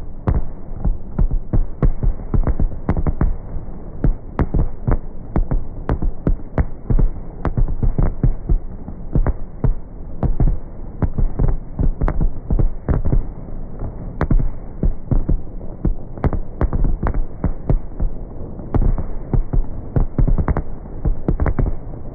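A dense barrage of fireworks bursting, several low booms every second, overlapping without a break.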